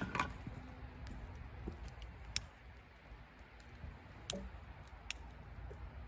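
Small wood fire crackling, with a few sharp pops spread over several seconds.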